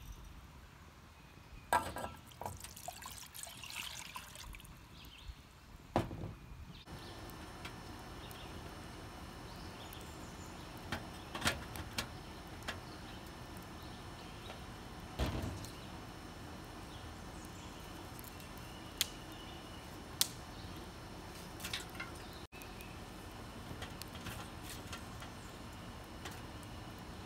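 Wood fire burning in a homemade tin-can hobo stove, with scattered sharp crackles and clicks as sticks are fed in, over a steady hiss.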